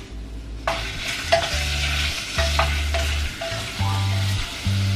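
Ground meat frying in a hot enamel pot, sizzling as it goes in under a second in and then stirred and scraped with a wooden spatula; it is being fried hard to render out its fat.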